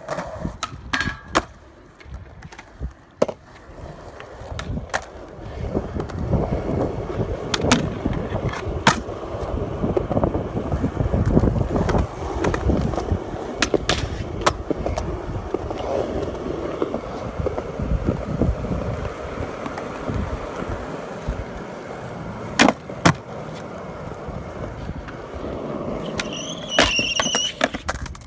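Skateboard wheels rolling on concrete, with sharp clacks of tail pops and landings at irregular intervals, and a stretch of the trucks grinding along a metal rail.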